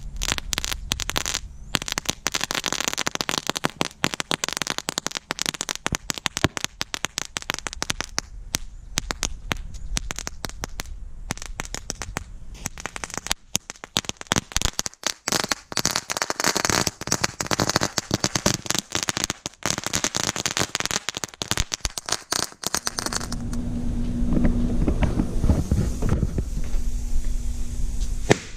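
Red cannon fuse burning after laser ignition: a dense, fast, irregular crackle as it spits sparks. Near the end the crackle gives way to a lower, steadier rumble.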